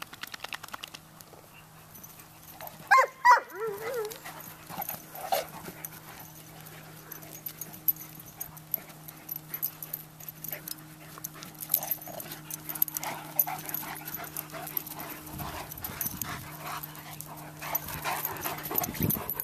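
Large dogs playing, one of them in prey drive and 'talking': a loud, short pitched vocal call about three seconds in and a weaker one about two seconds later, with scuffling and footfalls on grass through the rest.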